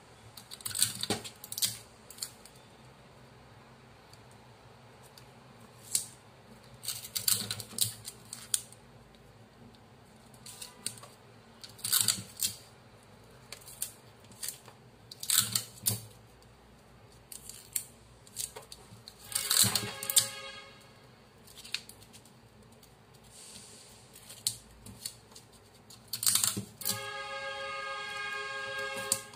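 Paper strips and a kraft-paper sleeve pattern being handled, pressed and stuck down on a table: repeated short paper rustles and crinkles. Twice a drawn-out pitched squeal, the longer one near the end.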